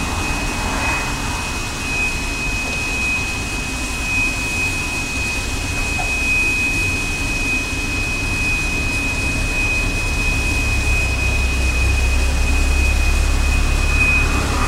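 LPG dispenser pump filling a refillable gas bottle: a steady high-pitched tone over a low hum, the hum growing a little stronger in the last few seconds.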